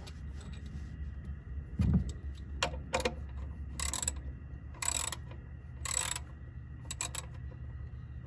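Clicks, metal rattles and three short rasping strokes about a second apart, over a steady low hum.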